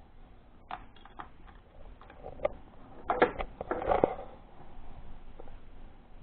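Batteries and small plastic detector parts being handled, a scatter of light clicks and knocks with some rustling.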